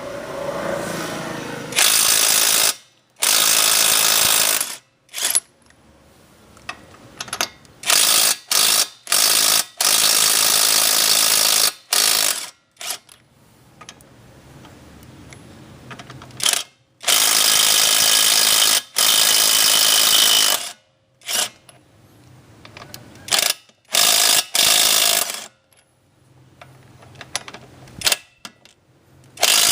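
21 V brushless cordless impact wrench hammering in repeated bursts of one to four seconds, the trigger pulled and released again and again, with a few short blips in between.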